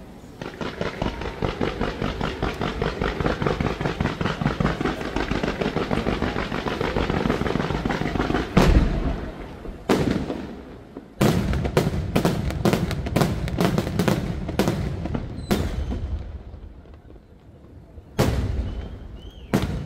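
Aerial fireworks display. For about eight seconds there is a dense, rapid run of small bangs, several a second. Then come single loud shell bursts and a quick run of a dozen or so loud bangs, a brief lull, and two more bangs near the end.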